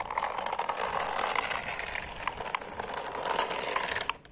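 Remote-control toy car driving over rough concrete: its small electric motor and plastic gears whirring, with scattered clicks, cutting out for a moment near the end.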